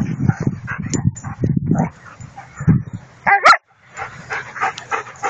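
German shepherds play-fighting, growling and barking in rough low bursts, with a short, loud high-pitched yelp a little over three seconds in.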